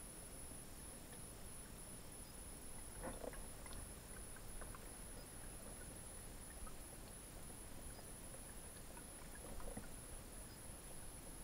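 Faint steady hiss of a camera recording underwater, with a constant high-pitched electronic whine and a few soft clicks, the clearest about three seconds in and another near the end.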